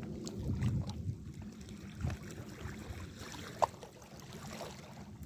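Outdoor wind rumble on the microphone over water noise at the shore, with a few small knocks and clicks, and one short high squeak about three and a half seconds in.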